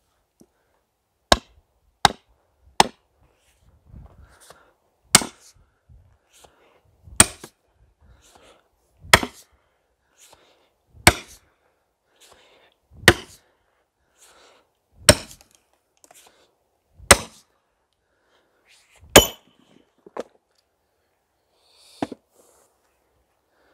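Splitting maul (Fiskars IsoCore XXL) hammering a steel twist splitting wedge into a log, metal striking metal. Three lighter taps set the wedge, then eight hard blows come about two seconds apart.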